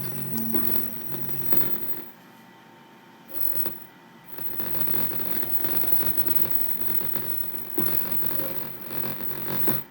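A computer's speakers putting out a buzzing hum and static hiss, the audio fault of a Mac running Windows under Boot Camp. The buzz drops out about two seconds in, flickers back briefly, then returns and runs until it cuts off suddenly near the end.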